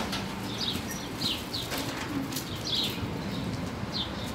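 Small birds chirping: a string of short, high chirps, each falling in pitch, repeated every half second or so, over a steady low hum.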